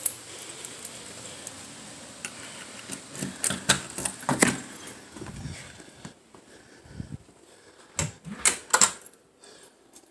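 Handling noise: bunches of sharp clicks and knocks, with a few duller thumps, over a steady hiss that drops away about six seconds in.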